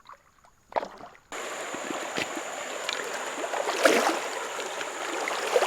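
River water rushing over rocks, a steady noise that starts abruptly about a second in after near silence, with a few brief knocks over it.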